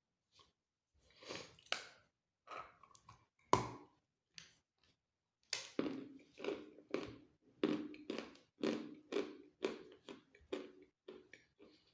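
Close-up crunching of a person biting and chewing hard, dry pieces of White Mountain chalk. A few sharp bites come first, then steady chewing at about two crunches a second.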